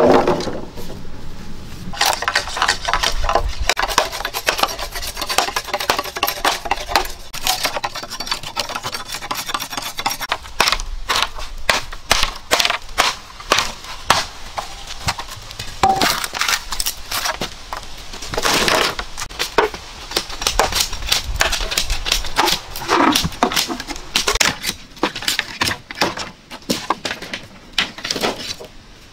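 Green bamboo being worked with machetes: irregular hollow knocks and cracks as culms are split and stripped into slats, some strokes ringing briefly. A louder clatter of poles on the pile comes right at the start.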